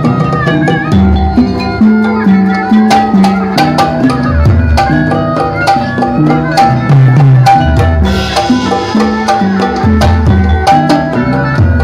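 Sundanese gamelan ensemble playing jaipong music: bonang pot gongs struck with padded mallets in quick runs of ringing notes over kendang drum strokes that slide in pitch.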